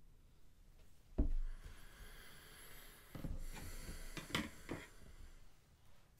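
A single knock on the table about a second in, then a few seconds of rustling and crinkling as packaging is handled, with several sharp clicks.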